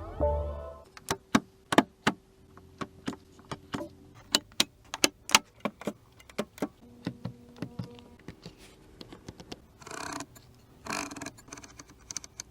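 A run of sharp, irregularly spaced clicks from a BMW i3's controls being worked, over a faint steady hum. A short swish comes twice near the end.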